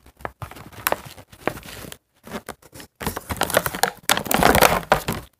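Plastic packaging of a Hairdorables doll crinkling and rustling as the doll is pulled out of its tray: a run of small crackles, then a louder stretch of rustling from about three seconds in.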